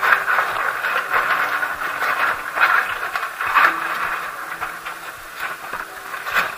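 Dry ceramic aquarium filter media grating and rustling as hands spread and level it in a plastic filter box, with a few louder scrapes about two and a half and three and a half seconds in. The sound is muffled by an action camera's hard case.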